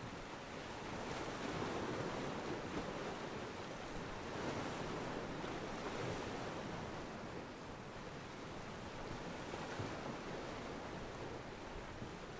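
Ocean waves washing against a pier, a steady wash of surf that swells and eases a few times.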